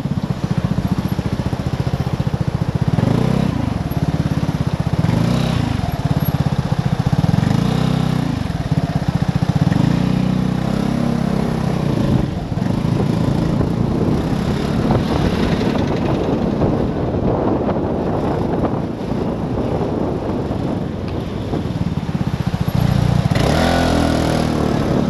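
Vespa GTS 250 i.e. scooter's single-cylinder four-stroke engine running at low speed in stop-and-go traffic, its note rising and falling with the throttle, with a louder surge near the end.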